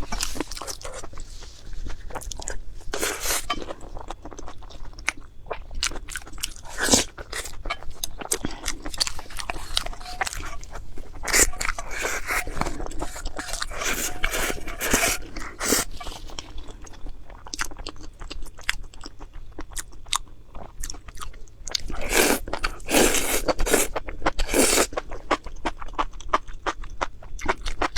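Close-miked eating: a person biting and chewing food, a dense, irregular run of sharp crunching clicks, busiest in two stretches around the middle and near the end.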